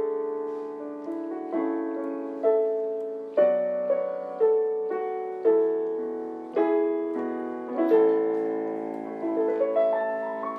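Background music: a slow piano melody, single notes struck about once a second and each left to fade.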